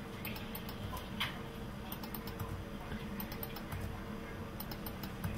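Faint, irregular clicking at a computer, many small clicks over a steady low background hum.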